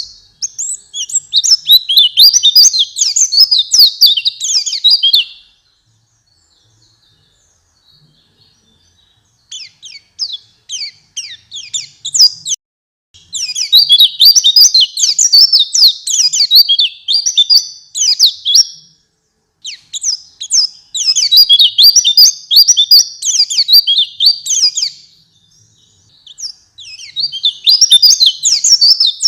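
White-eye (pleci) singing in bouts of fast, high-pitched twittering chirps. A pause of a few seconds follows the first bout, and there are shorter breaks between the later ones.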